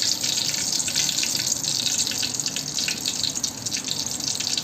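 Hot oil sizzling and crackling steadily in a kadhai, with bay leaves frying in it.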